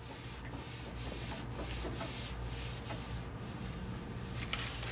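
Wet paper towel rubbed across the top of an overbed table with repeated wiping strokes, cleaning the surface.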